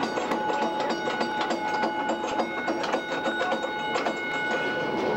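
Nelson Streetcar No. 23 running along its track: a steady whine that holds one pitch and fades about four seconds in, over quick irregular clicking and rattling from the car.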